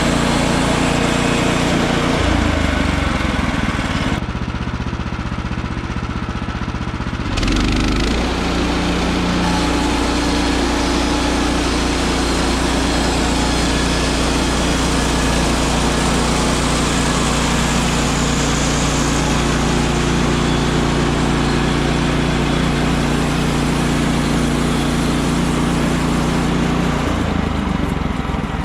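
Woodland Mills HM130max portable bandsaw mill running, its small engine going steadily. About four seconds in the higher-pitched part of the sound drops away and the level dips for about three seconds, then it comes back up and runs steadily on.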